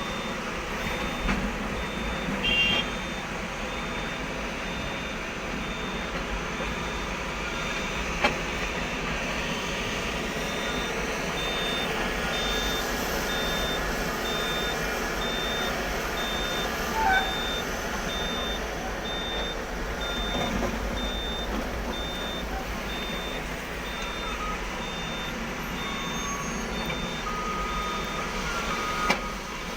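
Reversing alarm beeping steadily over the running diesel engines of heavy mining machinery, with a few sharp knocks.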